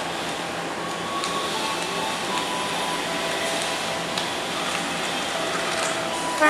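Steady running noise of a diesel-electric locomotive moving slowly, with a few faint wavering tones over it.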